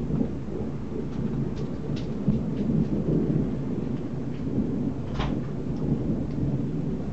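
Thunder rumbling steadily under falling rain, with scattered drops ticking and one sharper click about five seconds in.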